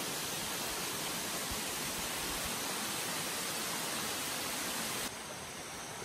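Steady rush of falling water from a waterfall, an even hiss with no breaks. About five seconds in it cuts off abruptly to a quieter steady hiss.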